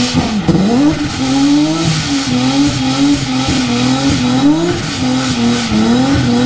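Nissan 350Z's V6 engine held at high revs during a burnout, its pitch rising and falling over and over as the rear tyres spin and smoke.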